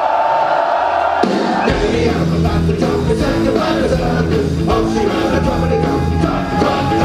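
Punk rock band playing a fast instrumental lead-in. A held note sounds alone, then about a second in the full band comes in with distorted electric guitar, bass and drums on a steady beat.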